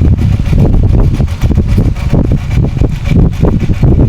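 Wind buffeting the microphone: a loud, uneven low rumble in gusts.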